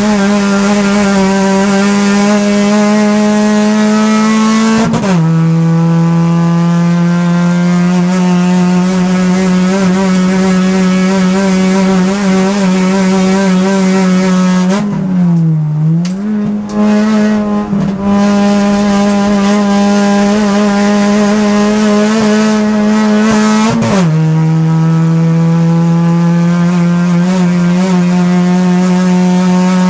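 Race car engine heard from inside the caged cabin, running hard at high revs. Its pitch drops suddenly and then climbs slowly again at the gear changes about five seconds in and again about twenty-four seconds in, with a short dip and recovery in the middle as the driver lifts off.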